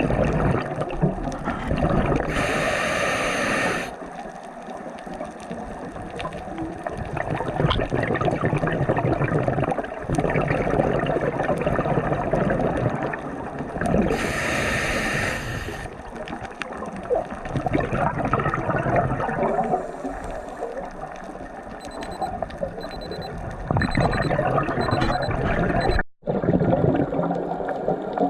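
Water sloshing and gurgling, with two louder hissing splashes.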